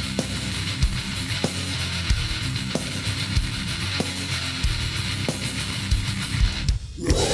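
Heavy metal song with guitar and drums keeping a steady beat. The music cuts out briefly near the end before a new section comes in.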